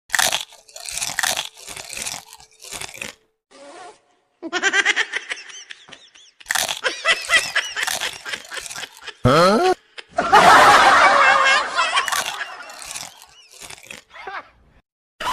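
Crunchy fried snack being bitten and chewed, loud crunching bursts, mixed with voice-like sounds from the edit and a sharp rising glide about nine seconds in.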